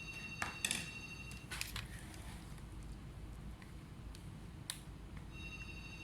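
A few sharp clicks and taps, with a steady high electronic tone that stops about a second and a half in, over a low hum.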